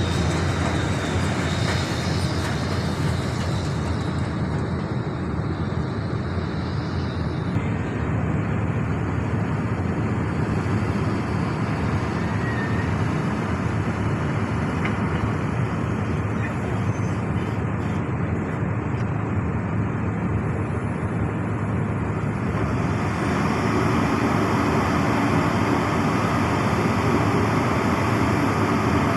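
SANY SY365H excavator's diesel engine running steadily under hydraulic working load. It grows louder and brighter about three quarters of the way through.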